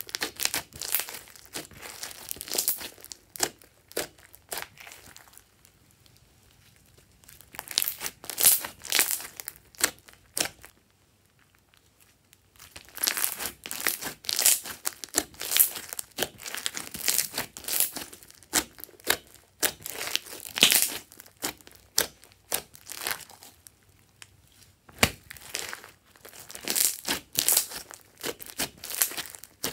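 Thick glossy slime mixed with foam beads being kneaded and squeezed by hand, making sticky crackling and popping clicks in irregular clusters. The clicking pauses twice, briefly, before starting again.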